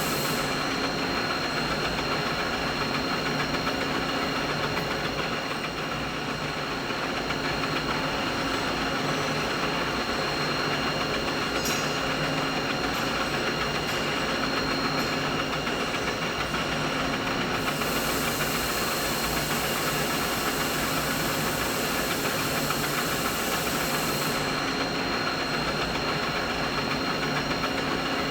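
Steady machinery drone: an even hiss with several held tones running through it. A high, bright hiss drops out about half a second in, comes back about 18 seconds in, and cuts off again about 24 seconds in.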